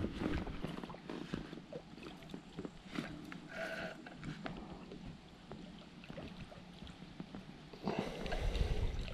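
Small clicks and knocks of fishing tackle being handled at the waterside, with a brief pitched animal call about three and a half seconds in and a rush of noise near the end.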